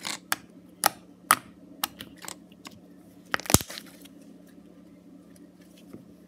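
Foam slime being stretched and squeezed by hand, making sharp clicking and popping noises: a quick string of them in the first two seconds, the loudest about three and a half seconds in, then only faint ones.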